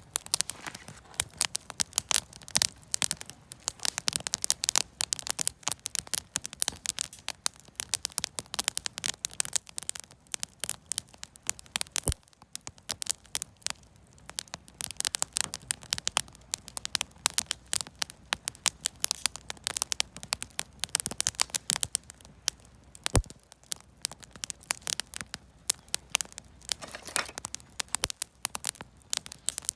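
Wood fire of lumber offcuts and firewood crackling: a dense, irregular run of small pops and snaps, with a few sharper single pops.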